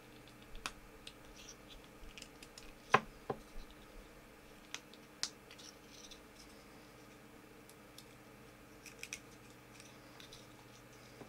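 Knife whittling a piece of wood: scattered small scrapes and clicks of the blade cutting, with one sharp click about three seconds in.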